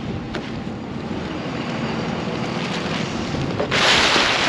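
Wind buffeting the microphone with a steady rush, rising suddenly to a loud gust about four seconds in. A faint knock near the start.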